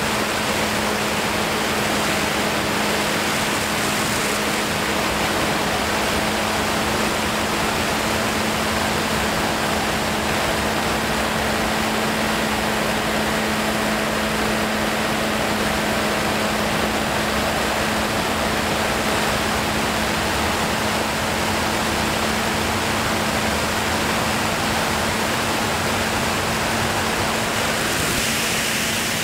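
Steady rush of air over the microphone in flight, with a constant low hum underneath.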